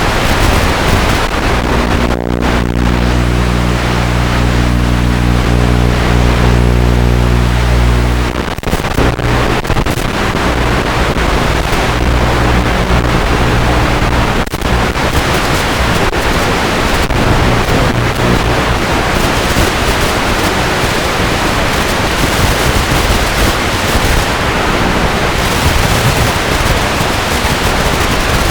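Loud steady rushing noise from an FPV flight recording, with a low buzzing hum for the first eight seconds or so that cuts off abruptly.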